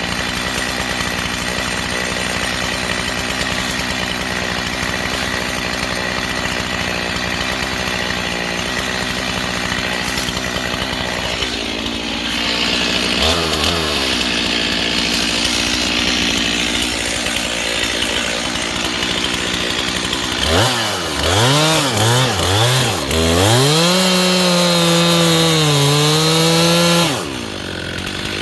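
Two-stroke chainsaw idling, then throttled up to a steady higher speed. Later it is revved in several quick blips and held at full throttle, the pitch sagging briefly as it bites into the wood, before dropping back to idle near the end.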